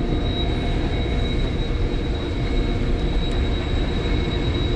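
Steady mechanical drone with a low rumble and a constant high-pitched whine.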